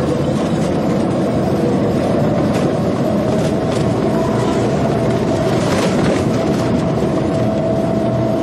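Steady rumble of a moving vehicle's engine and road noise in city traffic, with a steady tone joining about three seconds in.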